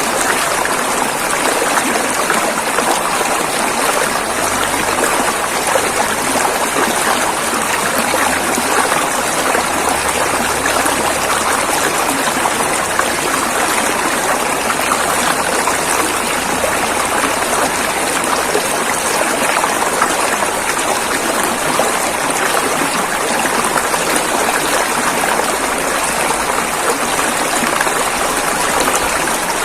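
River water rushing and flowing over rocks, a steady dense rush with no breaks.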